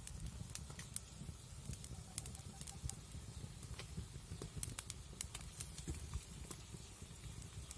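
Fish curry boiling in the pan, with scattered irregular pops and crackles over a steady low rumble.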